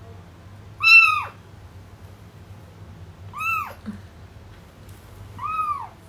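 A cat meowing three times, each meow short and rising then falling in pitch. The first, about a second in, is the loudest.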